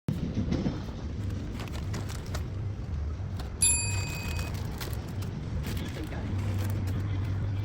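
A single short bell-like ding a little before halfway, ringing out for under a second, over a steady low hum and light handling rustle.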